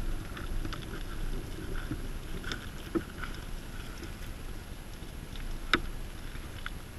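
Muffled rustling and handling noise with scattered light clicks, and two sharper knocks about three seconds in and near six seconds.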